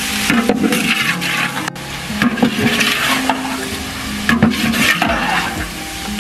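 Chicken pieces sizzling as they fry in hot ghee in a large steel degh, with a long metal ladle scraping and stirring through them. The chicken is browning.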